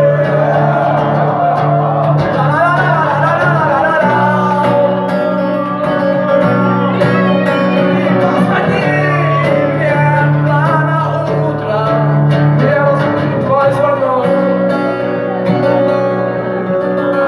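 Live band music: a singer over guitars and a sustained bass line, the chords changing every few seconds.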